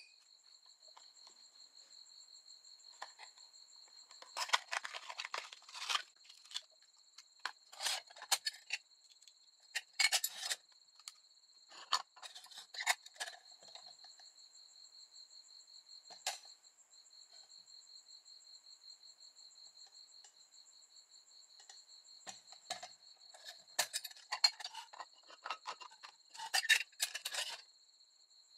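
Metal and glass parts of a small candle lantern clinking and rattling in bursts as it is handled, over a steady high trill like crickets.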